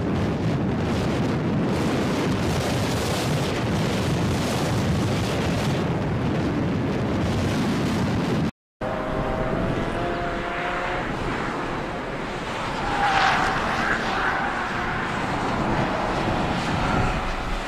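Strong wind buffeting the microphone, with faint car engines under it. After a brief dropout about halfway through, cars drive past on the circuit, their engines heard as rising and falling tones, the loudest pass a few seconds later.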